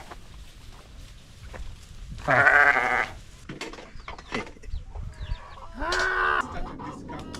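A bleating farm animal calls twice: a long, wavering bleat about two seconds in and a shorter one that rises at its start near six seconds. Faint clicks and rustles fall between the calls.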